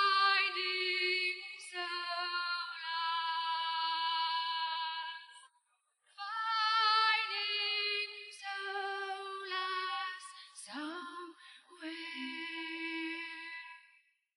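Isolated live female lead vocal with the band removed, singing long held notes with a wavering vibrato. The notes come in two phrases, with a brief breath pause about five and a half seconds in.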